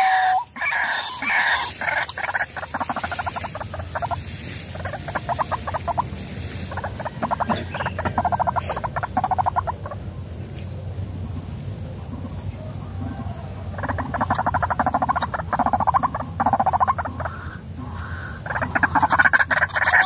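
White-breasted waterhen (ruak-ruak) calling: several bouts of fast, rapidly repeated notes, each lasting a few seconds, with pauses between.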